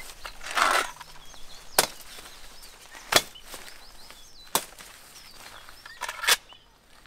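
Stems and branches being cut by hand with a blade: three sharp cuts about a second and a half apart, with foliage rustling and thrashing before and after as the cut growth is pulled away. Birds chirp faintly.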